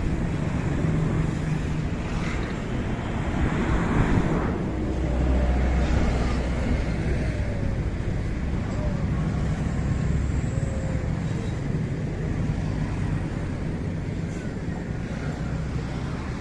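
Steady low rumble of motor vehicles with road-traffic noise, swelling for several seconds from about four seconds in.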